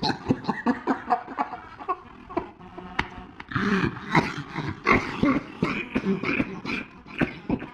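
A dog coughing over and over in quick, short hacks.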